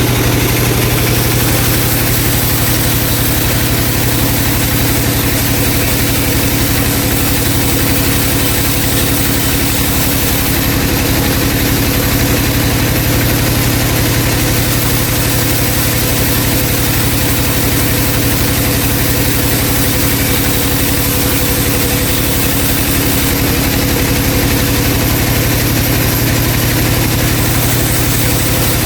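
Vertical band saw running steadily, a constant loud machine hum with no change in pace.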